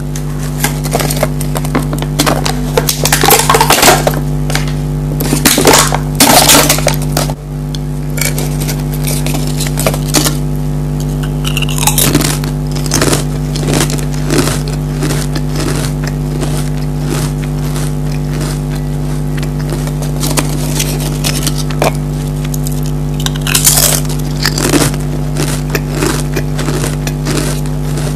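Pringles potato crisps being bitten and chewed close to the microphone: a long run of sharp crunches and crackles, louder in a few spells, over a steady low hum.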